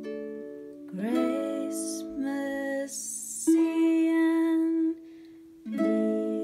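A woman sings a slow phrase to her own small lever harp. Plucked harp notes ring and die away at the start, the singing carries through the middle with soft 's' sounds, and a new harp chord is plucked near the end.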